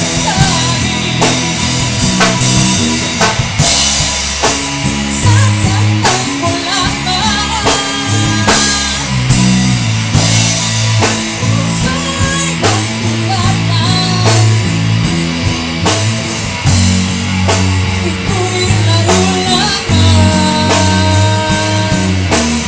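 Recorded rock song: a band with guitar, bass and drum kit playing, and a singing voice at times.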